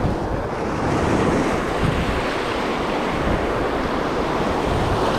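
Ocean surf washing onto the beach, a steady rush, with wind buffeting the microphone in a low rumble.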